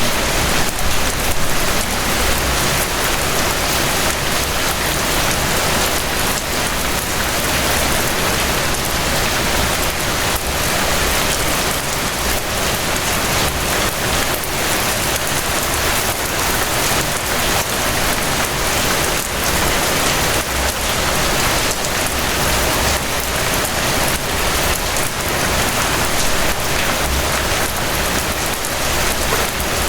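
Steady rain falling: a dense, even hiss with many small drop impacts ticking through it.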